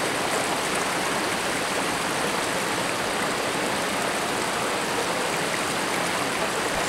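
Shallow rocky creek rushing steadily over boulders and stones, an even, unbroken wash of running water.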